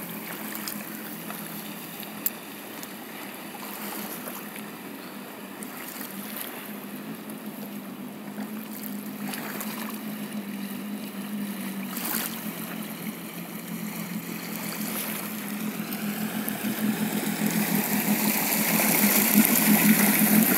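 Yamaha jet ski engine running steadily as the craft moves through the water, with a constant hum and the wash of water. It grows louder toward the end as the jet ski is close by and churning up its wake.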